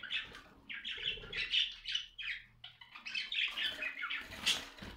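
Budgerigars chattering in a quick, busy run of short chirps and warbles, with one louder, sharper call near the end.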